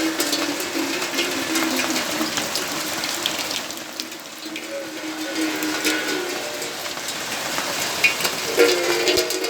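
Steady rainfall with many separate drops ticking and dripping, over soft plucked-string background music.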